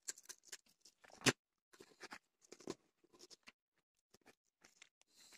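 Hands handling a salted carp while tying kitchen twine around it: faint, irregular soft clicks, rustles and scrapes of twine and fish on a plastic cutting board, with one sharper knock just over a second in.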